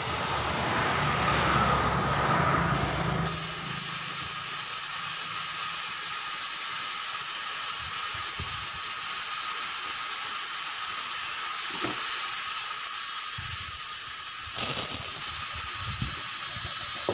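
Compressed air hissing loudly and steadily, starting suddenly about three seconds in, with a few faint knocks near the end.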